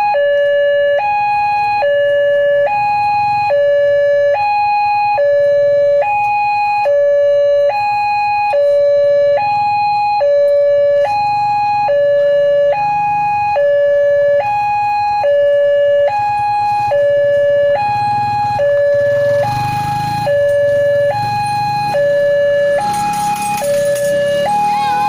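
Railway level-crossing warning alarm sounding a steady two-tone high-low signal, about one high-low pair a second, warning that a train is coming while the barrier is down. A low engine rumble from road traffic runs underneath, swelling about twenty seconds in, with a brief hiss a little before the end.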